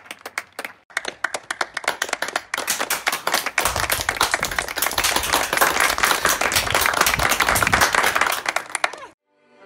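Many people clapping their hands, a few claps at first and then more and more layered together into dense applause that stops abruptly about nine seconds in.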